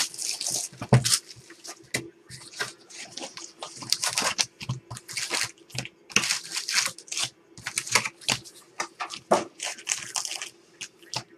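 Hands opening a cardboard trading-card box and lifting out foil-wrapped card packs: a busy run of short cardboard scrapes, rustles and wrapper crinkles, with a faint steady hum underneath.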